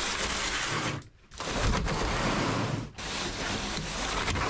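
Scraping and rustling of plastic nursery trays of potted plants being slid across a pickup's plastic bed liner. The noise cuts out abruptly twice, about a second in and again near three seconds.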